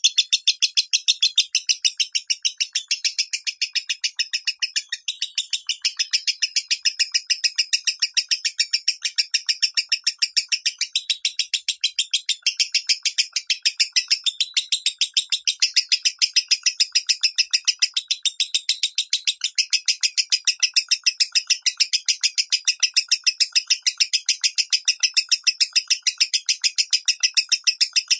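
Lovebird singing in the 'minor' style: a long, unbroken run of sharp, high chirps repeated evenly at about three a second.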